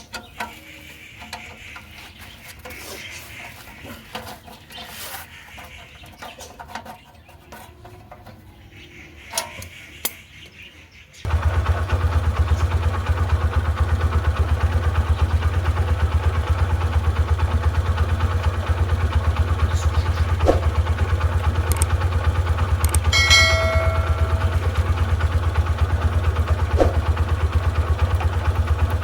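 Scattered clicks and knocks of hand tools for about ten seconds. Then a Suzuki GS150R's single-cylinder four-stroke engine comes in suddenly and idles steadily with an even pulse. A short high beep sounds about two-thirds of the way in.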